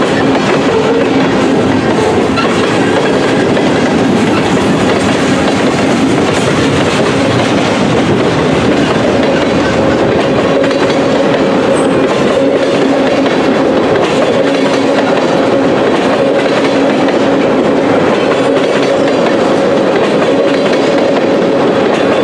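Freight cars of a Canadian National mixed freight rolling steadily past: a continuous loud rumble and clatter of steel wheels on rail, with a faint steady tone running underneath.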